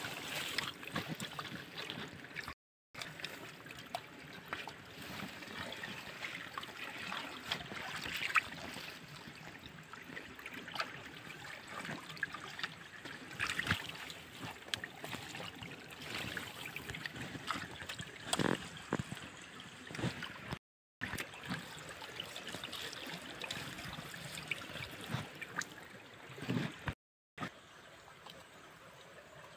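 Shallow water trickling and splashing around a bamboo-strip fish trap as it is pressed into a muddy channel, with scattered knocks, rustles and squelches from the hands working the trap and mud. The sound cuts out completely for a moment three times.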